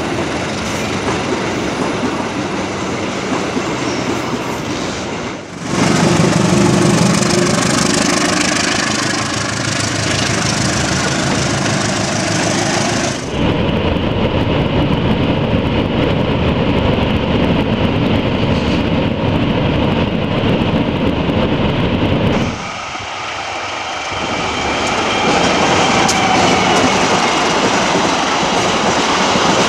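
Passenger train running along the rails. The sound changes abruptly several times, with a louder, fuller stretch from about 5 to 13 seconds in.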